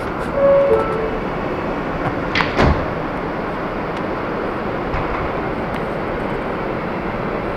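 R160 subway car's door-closing chime, two falling notes, then the sliding doors shutting with a loud knock about two and a half seconds in. The car's steady running noise follows.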